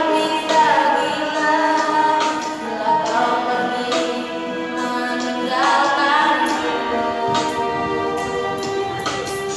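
A young girl singing solo into a handheld microphone, holding long notes that slide from one pitch to the next.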